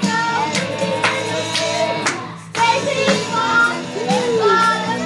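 Karaoke backing track playing with a steady beat, about two beats a second, and a child singing along, with a short break in the music about halfway through.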